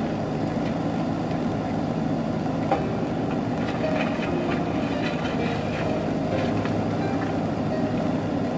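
JCB backhoe loader's diesel engine running steadily under load while the backhoe arm digs and dumps soil, with a sharp knock about three seconds in and scattered clanks of the bucket and stones after it.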